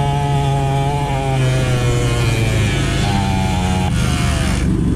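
Small two-stroke engine of a cheap mini dirt bike running while ridden, a high buzz whose pitch eases down, picks up briefly about three seconds in, and drops again about a second later.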